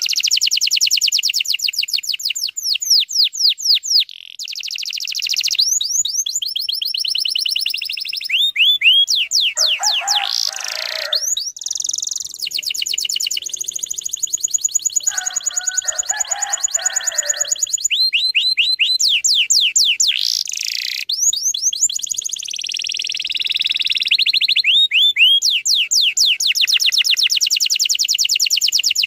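Domestic canary singing a long, dense song of fast trills: high chirps repeated in tight runs, one after another, with two lower-pitched phrases about ten and fifteen seconds in.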